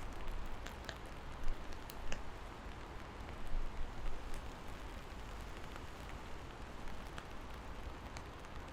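Steady rain falling, with scattered individual drops landing close by as sharp ticks, over a steady low rumble.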